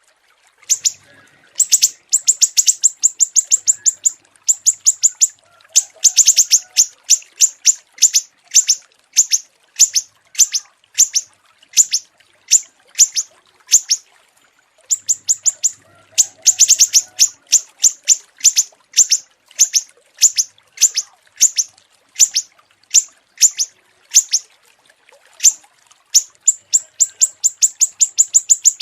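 Small songbird's rapid-fire song: quick runs of sharp, high chips repeated in short bursts, with brief pauses between them and a longer break about halfway through.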